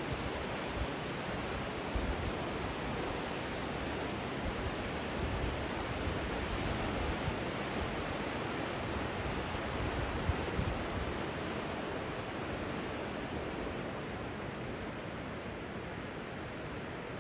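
Rushing of the flooded, silt-laden Indus River in spate: a steady, even wash of fast-moving water with a low rumble underneath, easing slightly near the end.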